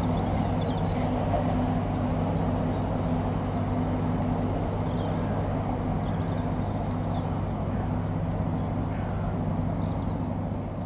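Class 166 Networker Turbo diesel multiple unit running slowly, a steady diesel engine drone with a low hum beneath. Faint bird chirps sound above it.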